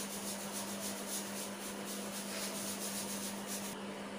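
Quiet room tone: a steady low hum under faint hiss.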